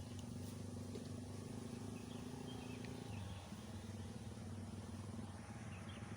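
Steady low droning hum, like a distant motor running, which drops slightly in pitch about halfway through. Faint short high chirps sound over it.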